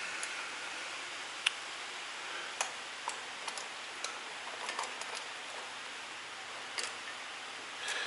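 Scattered light clicks and taps of parts and tools being handled during motor disassembly, irregular and a second or so apart, over a steady hiss.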